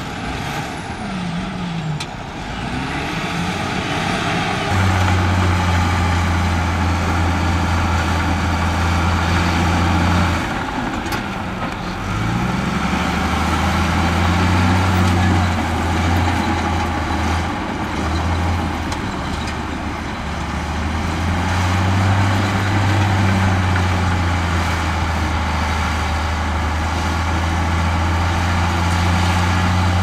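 Heavy diesel engines of earthmoving machinery running under load with a deep, steady note, which rises and falls a few times as the throttle changes.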